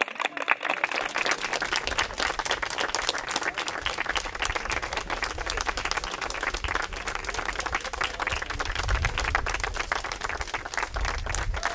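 A small crowd applauding: many pairs of hands clapping in a dense, steady patter.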